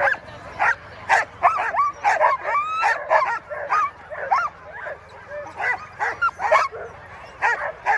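A harnessed sled dog team barking and yelping over one another, several sharp barks and rising yelps a second, the dogs worked up and eager to run while held at the start line.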